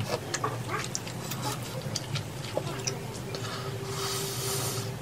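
Chewing and wet mouth sounds of eating chewy rice cakes in spicy tteokbokki sauce, made up of many small wet clicks and smacks. A longer hissing, slurp-like stretch comes near the end. A faint steady hum sits in the background from about halfway.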